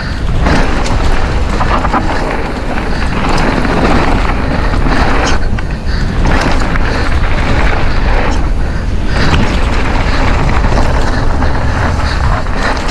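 Wind buffeting the microphone on a mountain bike riding fast down a dirt trail, with tyres rolling over the dirt and short clatters from the bike over bumps.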